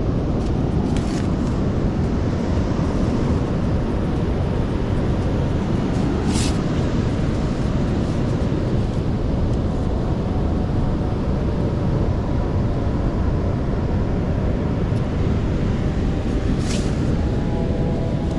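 Stormy beach noise: wind buffeting the microphone over breaking surf, a steady low rumble with two brief hisses about six seconds in and near the end.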